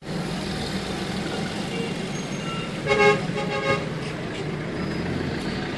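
Busy street traffic heard from inside a vehicle: a steady low engine hum, with a vehicle horn tooting briefly about three seconds in, the loudest sound here.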